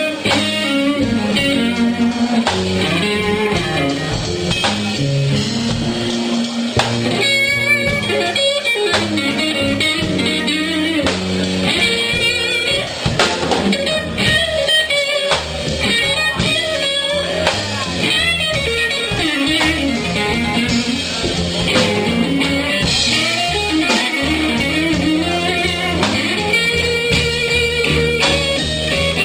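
A band plays a bluesy instrumental passage led by guitar, with no singing.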